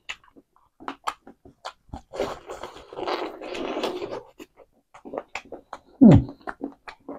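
Close-miked mouth sounds of a person eating bone-in chicken by hand: wet smacks and clicks of chewing, with a longer stretch of sucking and slurping at the meat through the middle. About six seconds in comes a brief hum that falls in pitch.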